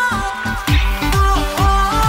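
Background music: an electronic track with a melody line stepping between held notes, joined just under a second in by a steady beat of deep, booming bass-drum hits.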